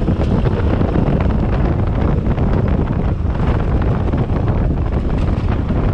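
Steady rush of wind buffeting the microphone on a moving Vespa PX scooter, with the scooter's engine running underneath.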